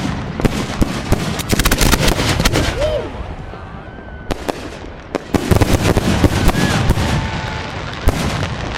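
Fireworks going off: sharp bangs and rapid crackling, densest in two flurries, about a second and a half in and again about five and a half seconds in.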